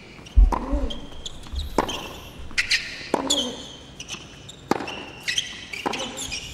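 Tennis rally on a hard court: sharp knocks of the ball on the racket strings and on the court, one every half second to second and a half, with short high squeaks between them.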